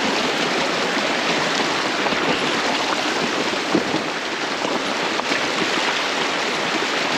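Runoff water streaming down a rocky trail, a steady rushing, with the tyres of a slow-rolling fat-tire electric bike on wet stones and a light knock about four seconds in.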